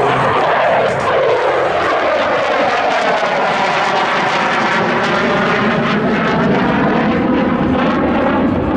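Loud jet noise from a Sukhoi Su-27's twin AL-31F afterburning turbofans as the fighter flies its display. The sound sweeps and phases as the jet passes by, mid-way through.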